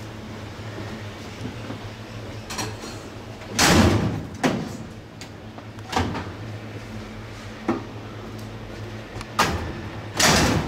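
Stainless steel food pans and lids knocking and scraping against a metal serving counter as they are set into its wells. There are several clanks, with two louder, longer scraping clangs about four seconds in and near the end, over a steady low hum.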